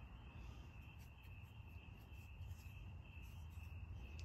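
Crickets chirping in a faint, steady high trill, over a low background rumble.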